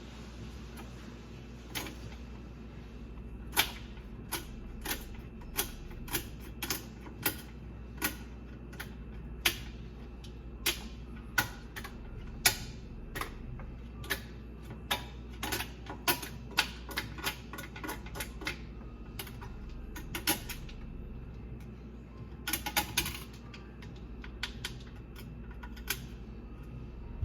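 Sharp, irregular clicks and taps of a thin metal tool picking at a garbage disposal jammed with aquarium gravel, with a quick flurry of clicks near the end, over a steady low hum.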